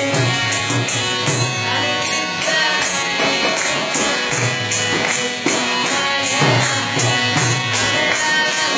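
Kirtan instrumental passage without singing: a harmonium holds sustained chords while a mridanga barrel drum beats a steady rhythm, with a regular high clinking beat above it.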